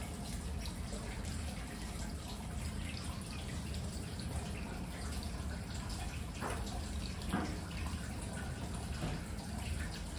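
Water running from a stone spout into a stone bathtub: a steady trickle with small splashes and drips.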